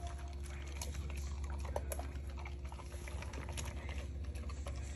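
A large dog, a Cane Corso, eating dry kibble from a stainless steel bowl: rapid, irregular crunching and clicking as it chews. A steady low hum runs underneath.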